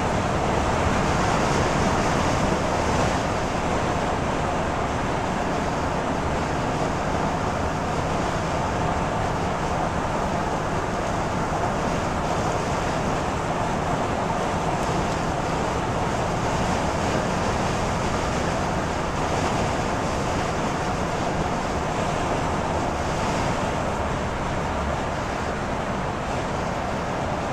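Steady road noise inside a car's cabin at freeway speed: the tyres hissing on wet pavement.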